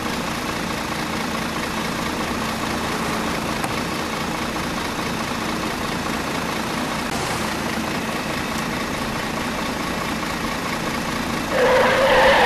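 A vehicle engine idling steadily, with a louder pitched tone coming in near the end.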